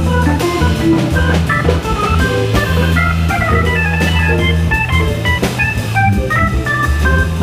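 Hammond B3 organ playing a quick jazz solo line of short notes over held low bass notes, with a drum kit keeping time behind it.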